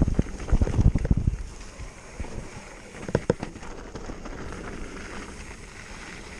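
Mountain bike on plus-size tyres rolling over a dirt trail: low rumbling jolts over bumps for the first second and a half, then two sharp knocks about three seconds in, over a steady rolling and wind noise.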